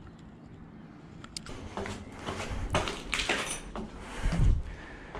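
Footsteps scuffing on concrete stairs, with a few sharp clicks and a heavy low thump a little past four seconds in.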